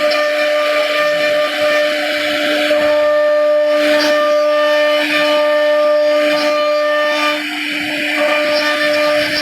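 CNC router spindle running at speed and cutting into a wooden door: a steady, loud whine with the grinding hiss of the bit in the wood, dipping briefly about seven and a half seconds in.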